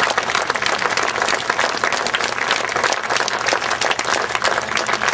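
Theatre audience applauding steadily with dense clapping.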